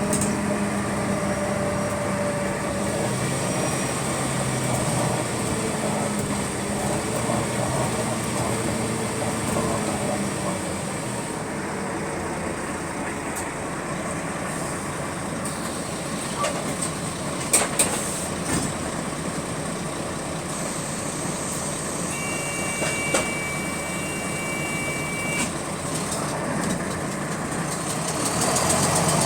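Bus interior, with the diesel engine slowing as the bus comes to a stop and then idling. A steady two-tone beep sounds for about three seconds past the middle, and the engine picks up again near the end.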